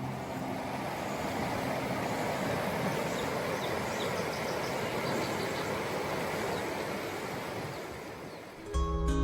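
Steady rush of flowing water with faint bird chirps over it; acoustic guitar music comes in near the end.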